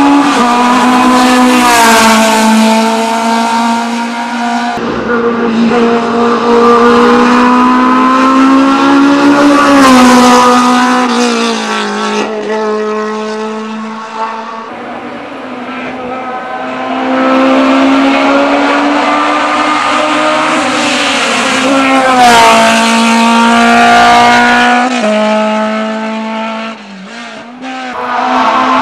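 Fiat X1/9 Dallara 1600 race car's four-cylinder engine at high revs under hard acceleration. The note climbs, drops sharply at each upshift and climbs again, over several separate passes.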